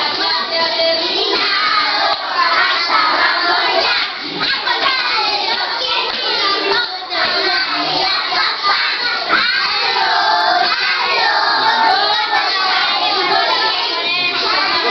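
A group of young children singing and shouting together, many voices at once.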